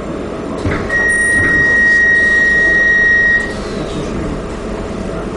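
Docklands Light Railway train standing with its doors open: a knock, then a single steady high warning tone lasting about two and a half seconds, the doors-closing signal before departure, over the low hum of the train.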